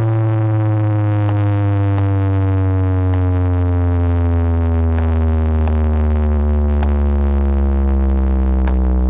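A deep, loud bass tone from a sound system's speakers, held as one long note that slides slowly down in pitch, as in a sound-check bass sweep.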